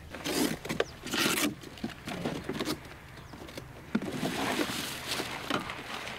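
Handling noises from unpacking a hard plastic transport case: short rustling, scraping swishes and scattered knocks, then a longer stretch of rustling about four seconds in as the drone fuselage is lifted out.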